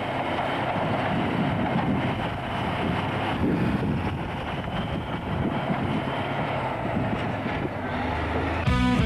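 Heavy machinery running: a wheel loader's diesel engine working, a dense, steady mechanical rumble and clatter. Music comes in near the end.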